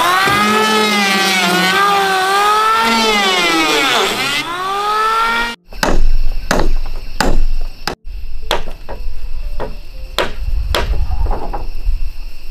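Music with one melodic line sliding up and down in pitch, cut off suddenly about five and a half seconds in. It gives way to irregular hammer blows, about one or two a second, as a house is being dismantled.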